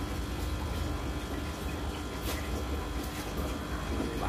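Aquarium equipment running: a steady hum with a low rumble beneath it, and air bubbling from an air line in the tank.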